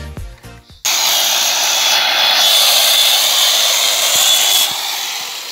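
Corded Metro electric chainsaw running at full speed with a steady high whine, its chain cutting into a log. It starts suddenly about a second in and eases off somewhat near the end.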